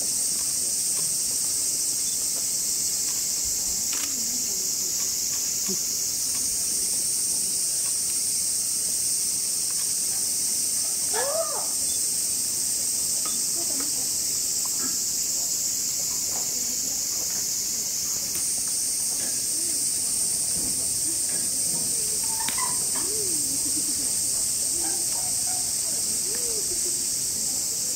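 Cicadas droning steadily in a high-pitched chorus, which grows a little louder about six seconds in and again about two-thirds of the way through.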